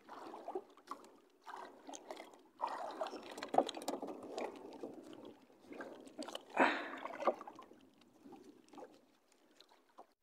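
Water lapping and sloshing against the hull of a small outrigger boat in irregular surges, with scattered clicks and rustles from hands handling a fish and a net bag.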